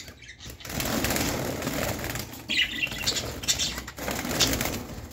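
Budgerigars flapping and fluttering their wings in a wire cage, a busy rustle that runs for about four seconds and then dies down near the end.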